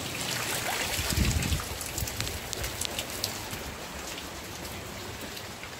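Heavy rain falling steadily, drops splashing on wet ground and puddles with scattered individual drip ticks. A brief low rumble comes about a second in.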